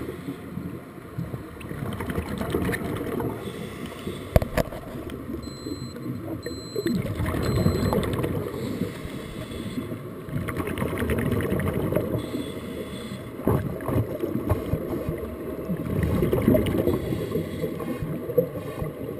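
Muffled underwater bubbling and rushing of scuba divers' exhaled air streaming from their regulators. It swells and fades every few seconds with each breath.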